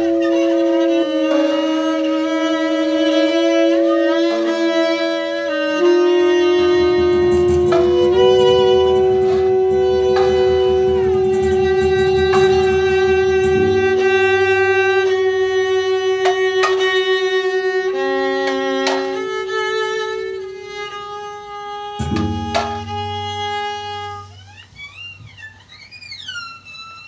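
Improvised experimental ensemble music: layered, held bowed-string tones led by violin, with a rough low drone in the middle and a few sharp attacks. About three-quarters of the way through the music thins and drops in level, leaving a quiet, high tone that slides slowly up and down.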